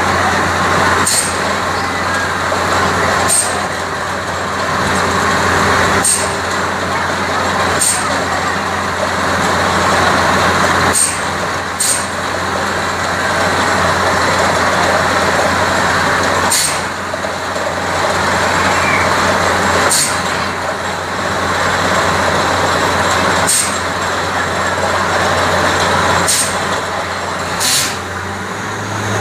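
Borewell drilling rig at work: a loud, steady rushing noise over a low, even hum, with sharp clicks every one to three seconds.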